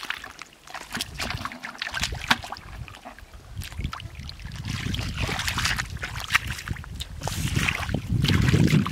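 Bare feet and hands squelching and sloshing through shallow muddy water, with irregular wet splashes and sucking clicks; the sloshing is heaviest near the end.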